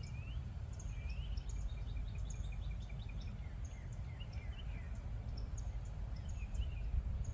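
Birds chirping with many short calls and quick rising whistled notes, over a steady low rumble.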